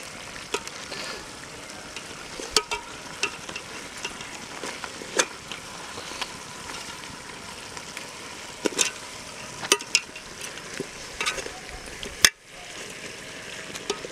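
Metal spoon stirring pigeon pieces in a metal cooking pot, with scattered clinks and scrapes against the pot over a steady sizzle of the meat cooking in its own juices. A sharp knock comes near the end.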